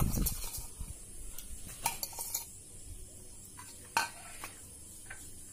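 Metal spoon stirring soft chocolate in a glass bowl, with a few sharp clinks of spoon against glass. There are low thumps of handling right at the start.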